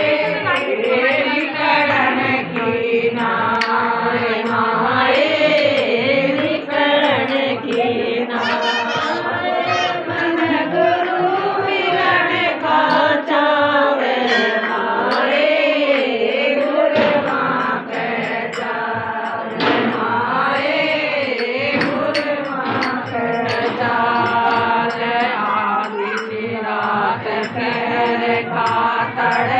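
A group of women singing a Hindi devotional bhajan together, the melody wavering and held on long notes, with hand claps keeping time.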